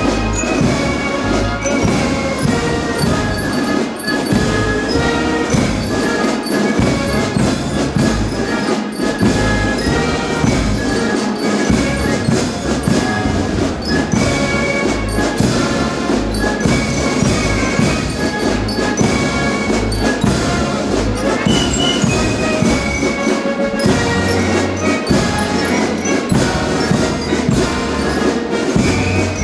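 A brass band with drums playing a steady piece of music.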